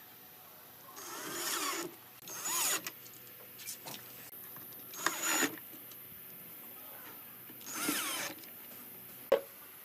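Power drill running in four short bursts of about half a second to a second each, its pitch gliding as it spins up and down. A single sharp knock comes near the end.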